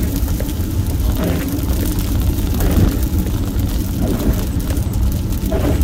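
Steady low road and engine rumble inside a moving car's cabin, with light irregular ticking of rain on the windshield.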